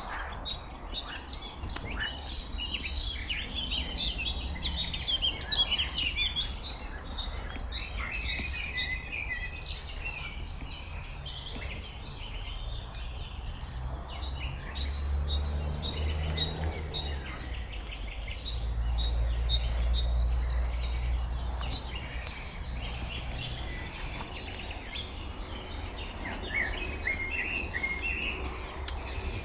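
Several small songbirds singing and chirping over the steady rush of a river. Low rumbles come and go around the middle.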